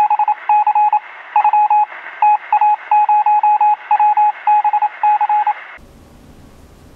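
Morse code: a single mid-pitched beep keyed on and off in short and long elements over a radio-like hiss. It cuts off suddenly near the end, leaving quiet room tone.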